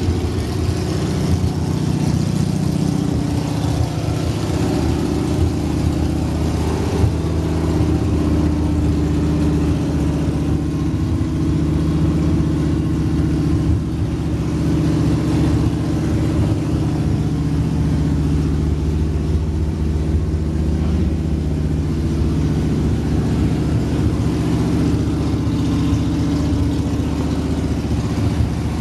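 Pontiac Trans Am's carburetted V8 engine idling steadily.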